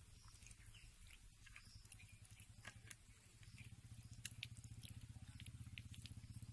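Near silence: a faint low pulsing rumble that grows a little stronger past the middle, with scattered faint light ticks.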